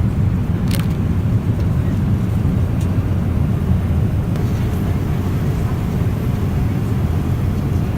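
Steady low rumble of airliner cabin noise inside a Boeing 777-300ER, with a couple of faint brief clicks.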